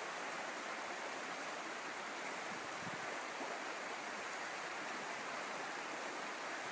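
Steady rushing of a river's running water, an even hiss with no separate strokes or knocks.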